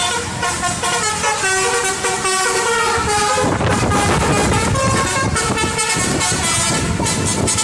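Bus telolet horn playing its multi-note melody, the pitched horn notes changing in steps. A heavier low rumble from the bus joins in about halfway through.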